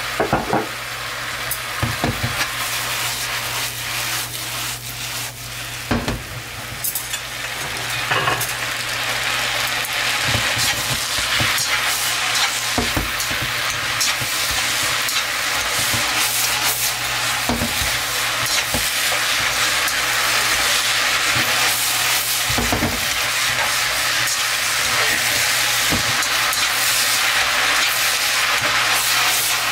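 Chow mein noodles and vegetables sizzling in a hot wok while being stirred and tossed with chopsticks, with scattered knocks in the first several seconds. The sizzle grows louder and steadier about ten seconds in.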